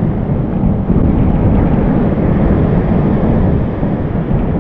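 Strong wind buffeting the microphone: a loud, steady rumble with no let-up.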